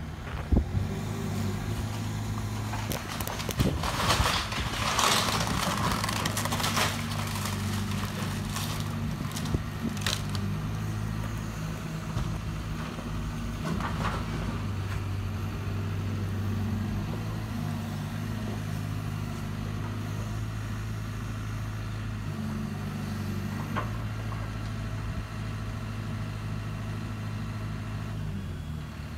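Hyundai 140 excavator's diesel engine running steadily while its bucket breaks up a brick shed: a burst of crunching and cracking debris about three to seven seconds in, then a few single knocks over the steady engine.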